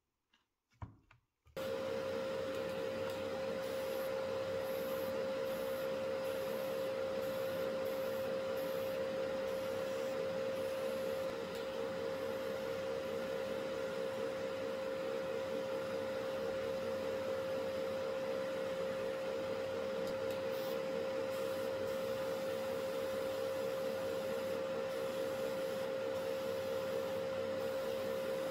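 A few faint ticks, then powder coating equipment starts suddenly about a second and a half in and runs steadily. It makes an even whirring hum with one strong, steady tone.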